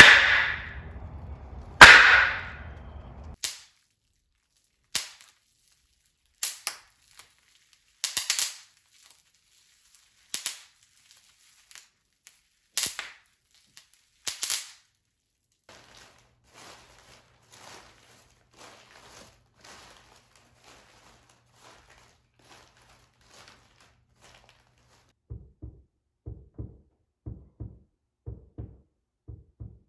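Foley sound effects being performed: two loud, sharp cracks like shots in the first two seconds, then a string of short snaps and clicks. A run of low knocks follows near the end.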